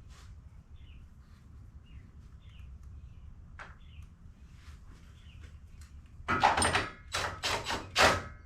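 Faint bird chirps, then from a little past six seconds in a run of loud, irregular metallic clacks and knocks from hand tools on the car's suspension as a bolt is worked and snugged up.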